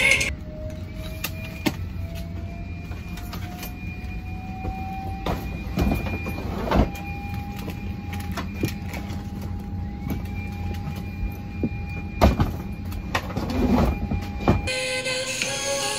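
Airliner cabin ambience: a steady low rumble with a faint whine that slowly rises in pitch over the first few seconds and then holds. Scattered knocks and clicks come from a flight attendant handling a bag and seats in the aisle.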